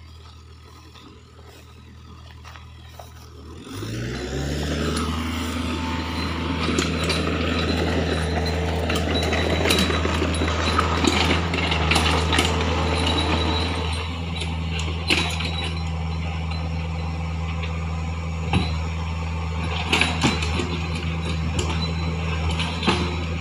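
Heavy diesel engine idling low, then revving up about four seconds in and running steadily at high revs, with scattered clanks and knocks.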